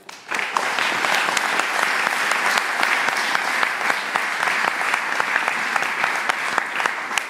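Audience applauding: many hands clapping steadily, starting just after the opening moment.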